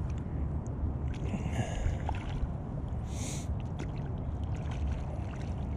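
Steady low rumble of wind and water around a kayak while a trout is being played, with a few faint ticks and a short hiss about three seconds in.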